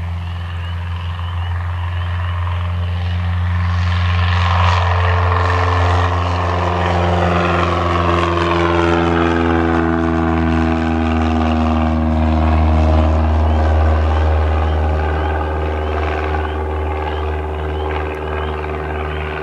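1978 Cessna 172N Skyhawk's four-cylinder Lycoming piston engine and propeller at full take-off power as the plane lifts off and climbs past. The drone swells, its pitch drops as the plane goes by, and it eases slightly as the plane climbs away.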